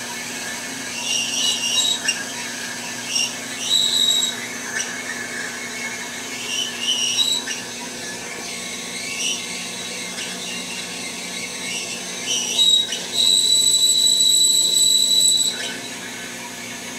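Hydmech DM1215 bandsaw with a carbide-tipped blade cutting heavy-wall steel tubing: a steady machine hum with high-pitched blade squeals coming and going. The longest squeal starts about thirteen seconds in and holds for over two seconds.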